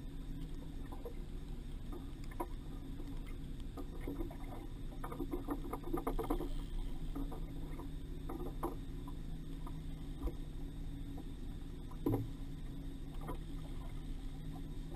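Water slapping against a small fishing boat's hull over a steady low hum, with scattered light knocks and clicks, a sharper knock about twelve seconds in.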